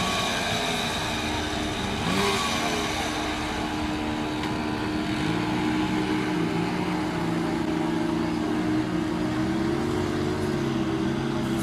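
An engine running steadily, its pitch wavering and shifting a little, with a change in the sound about two seconds in.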